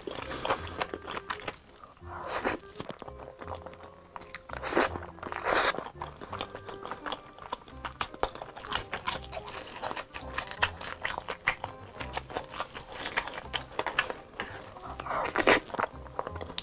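Close-miked eating sounds: chewing with wet mouth clicks, several short loud slurps of spaghetti in tomato sauce, and bites into a crunchy breaded fried cheese stick. Faint background music runs underneath.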